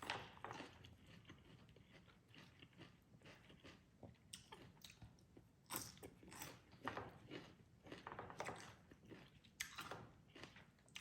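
Faint close-miked chewing of a spicy salmon salad with raw onion, with irregular clusters of crisp crunches between softer wet chews.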